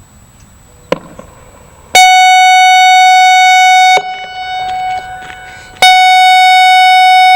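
ASC I-Force electronic outdoor warning siren sounding two loud, steady, single-pitch alert tones, each about two seconds long with a short gap between. Each tone cuts off abruptly and echoes briefly. A sharp click comes about a second in, before the first tone.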